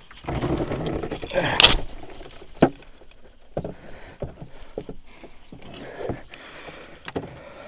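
Rustling handling noise, then a sharp knock about two and a half seconds in and scattered small clicks and knocks as a plastic-cased solar fence energizer is fitted onto the top of a steel T-post.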